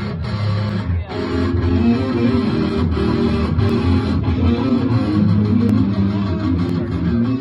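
Amplified electric guitar and bass guitar playing together continuously, with a brief break about a second in.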